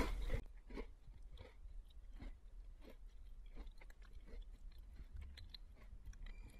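Slow, crunchy chewing, about one crunch every two-thirds of a second, after a short loud hit right at the start as music cuts off. A faint steady high tone comes in near the end.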